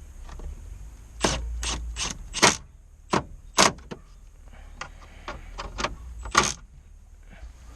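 A string of sharp clicks and knocks, about a dozen, from hard plastic and metal parts being handled and set against each other while the stereo mounting adapter is fitted in the dash opening.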